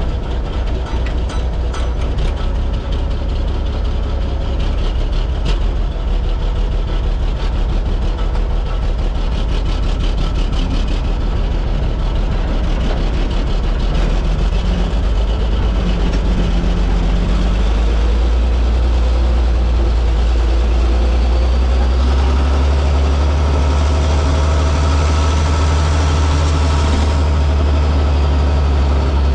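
International tractor engine running steadily as the tractor is driven, with some rattling in the first few seconds. About two-thirds of the way through the engine note gets louder and heavier.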